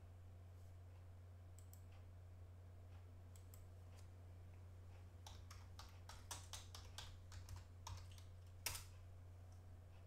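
Typing on a computer keyboard: a few scattered clicks, then a quick run of keystrokes a little past the middle, and one louder keystroke near the end, over a faint steady low hum.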